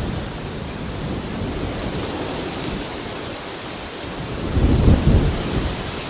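Steady rain ambience with a short, louder low rumble of thunder about four and a half seconds in.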